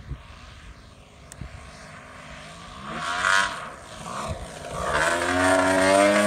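Turbine-and-gas-engine RC racer plane flying a low pass, its engine note growing louder as it approaches, with the pitch bending as it nears and loudest as it goes by close near the end.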